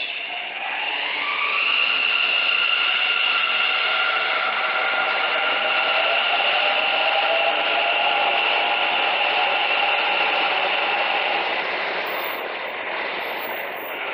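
Bangalore Metro six-coach electric train pulling out: its traction motors' whine rises in pitch over the first two seconds as it accelerates, then holds as several steady tones over a broad rushing noise, easing slightly near the end.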